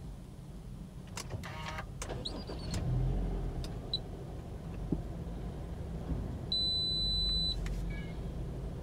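Subaru Forester X-Break's flat-four boxer engine starting and settling into idle, heard from inside the cabin. A few clicks come early, and a high electronic chime sounds for about a second near the end.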